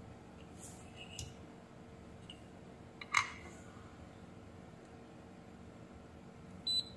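Multimeter probe tips tapping the metal legs of a power MOSFET, faint ticks with one sharp click about three seconds in. Near the end comes a short high beep from the multimeter as the probes bridge the MOSFET's legs, which are shorted.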